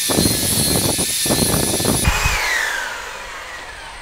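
Magic Ball shotgun bore cleaner, a wire brush and mop on a drill-driven rod, spinning inside the barrels with a loud, rattling whine. About two seconds in the drill is released and the whine falls in pitch as it spins down.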